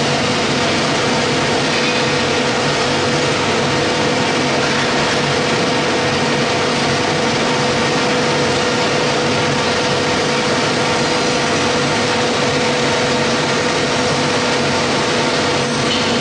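Vegetable dicing line running: the cutting machines and their conveyor drives give a steady mechanical hum with one constant tone held over it.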